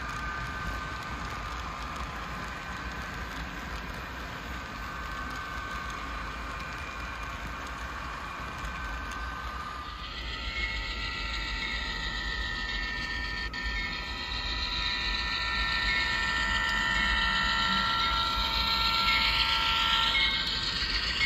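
HO scale model freight train rolling along the track, with a steady mechanical whine and rattle of running gear and wheels on rail. It gets louder from about halfway through as the cars and locomotive pass close by.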